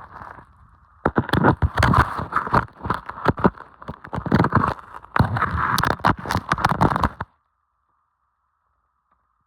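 Crunching, crackling scraping of ice-crusted snow being cleared off a vehicle, in several long strokes that stop abruptly about seven seconds in.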